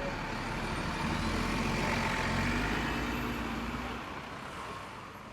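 City street traffic with a heavy road vehicle's engine rumbling close by. It grows loudest about two seconds in, then fades away toward the end.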